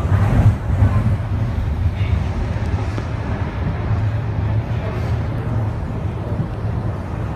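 Wuppertal Schwebebahn Generation 15 suspension railway car running, a steady low rumble with rolling noise.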